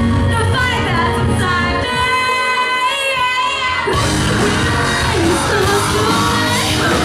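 Melodic post-hardcore band playing live: sung vocals over the band, which thins out for about two seconds leaving the voices almost alone, then the full band with drums comes back in about four seconds in, with shouted vocals.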